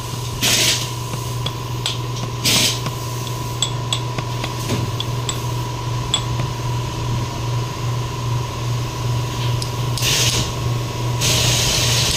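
Light metallic clicks and small ringing taps of a tool against an aluminium front differential housing as its seals are fitted, over a steady low hum. There are short bursts of hiss: one within the first second, another about two seconds later, and a longer one near the end.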